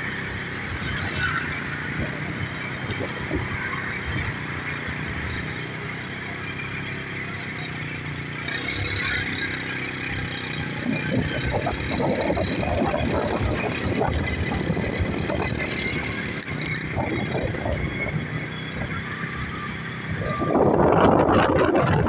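Motorcycle engine running steadily while riding in city traffic, with road and wind noise that grows stronger from about halfway. A sudden louder rush of noise comes in near the end.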